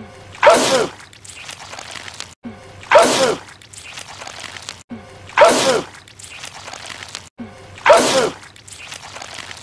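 A man sneezing a wet, messy sneeze, the same sneeze repeated four times about two and a half seconds apart. Each repeat starts after an abrupt cut, as in a looped clip.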